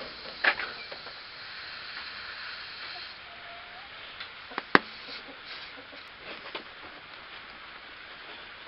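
Tire-plug kit's rasp tool being pulled out of a punctured tire with a short scrape, followed by a faint hiss for a couple of seconds: air escaping through the open puncture. A single sharp click comes about five seconds in, with a few small ticks after it.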